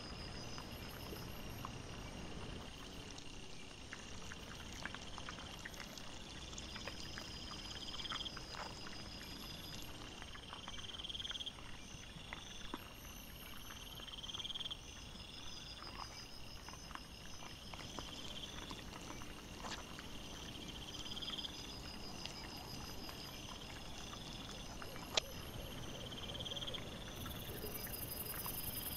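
Night insects calling: a rising chirp repeating about every two seconds over steady, finely pulsed high trills. Scattered faint clicks and rustles from the wild boar and piglets rooting and feeding, with one sharper click about 25 seconds in.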